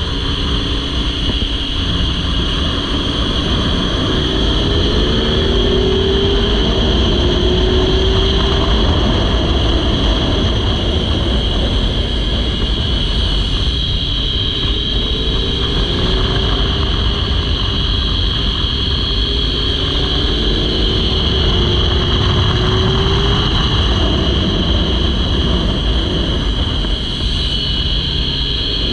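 Motorcycle engine at speed on a track lap, heard through heavy wind rush on an onboard microphone. The engine note climbs repeatedly as the rider accelerates out of corners and up through the gears.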